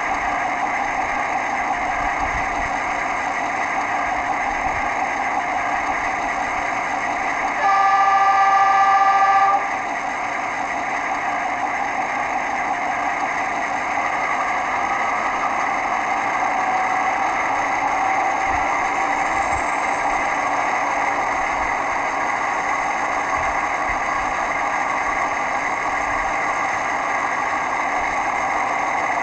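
ESU LokSound V5 sound decoder playing a China Railway DF4B diesel locomotive: the engine runs steadily, with one horn blast of about two seconds some eight seconds in. A high whine rises in about two-thirds of the way through and holds.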